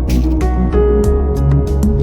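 Background instrumental music: sustained notes over a steady bass line, with light percussive hits.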